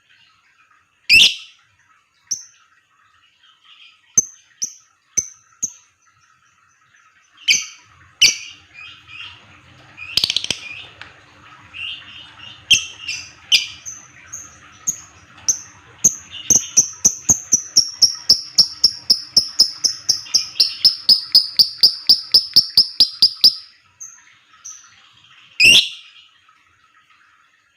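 Lovebird calling: sharp, harsh shrieks and short high chirps, then about halfway through a long run of rapid clipped notes, about four a second, the long 'ngekek' call that keepers prize, ending in another shriek.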